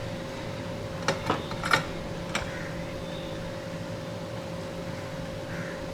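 Steady mechanical hum, with four sharp clicks and taps from small tools being handled between about one and two and a half seconds in.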